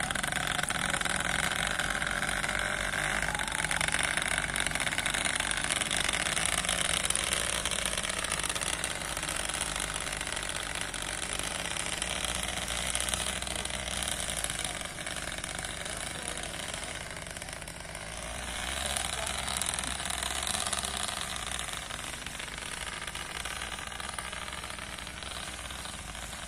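A motorcycle engine running steadily, gradually getting quieter toward the end.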